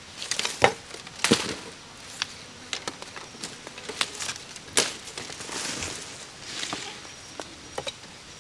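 Irregular knocks, taps and rustling. Two loud knocks come about a second in, another strikes midway, and rustling follows.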